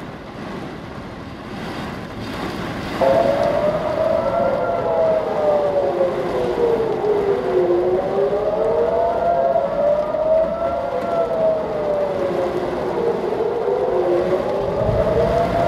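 Civil defense air-raid sirens in Israel wailing, warning of incoming missiles. The wail starts suddenly about three seconds in over a steady background rush, then slowly rises and falls about every six seconds, with a second siren sounding slightly out of step.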